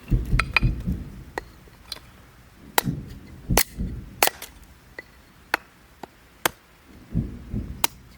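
Sharp wooden knocks of wood being chopped, about nine in all, with three low rumbling booms of about a second each: near the start, around three seconds in, and around seven seconds in. The booms are of unknown origin, likened to someone blowing up trees.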